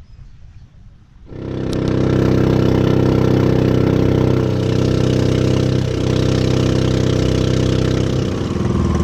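Honda 16 hp boat engine running loud and steady at cruising speed, pushing an outrigger boat, with water rushing past the hull. It cuts in suddenly about a second in after near quiet.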